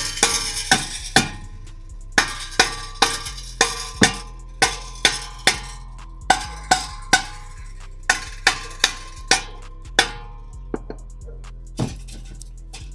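Hammer blows on a car's metal exhaust tip to knock it loose: a run of sharp metallic clanks, each with a short ring, about two a second with a few brief pauses.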